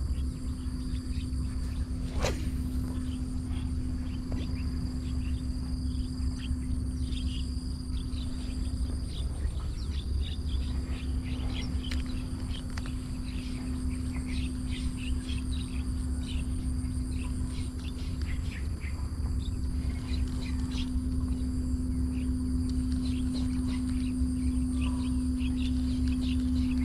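Insects, crickets among them, trilling steadily: a continuous high tone with a faster pulsing one above it and scattered short chirps. Under them are wind rumbling on the microphone and a steady low hum.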